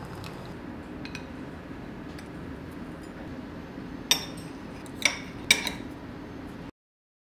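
Steel knife and fork clinking three times against a ceramic plate while cutting into a soft poached egg, the clinks sharp and the loudest sounds, over a steady low background hum. The sound cuts off suddenly near the end.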